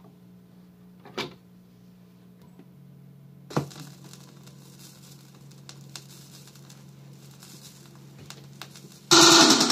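A 12-inch vinyl record handled on a turntable: a knock about a second in, then a louder thump as the stylus is set down, followed by the crackle of the record's lead-in groove over a low steady hum. Reggae music from the record starts loud near the end.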